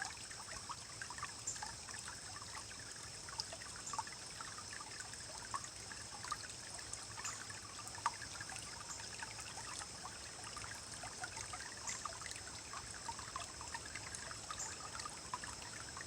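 Small forest stream rippling and churning over rocks, a steady rush of water full of small gurgles and splashes.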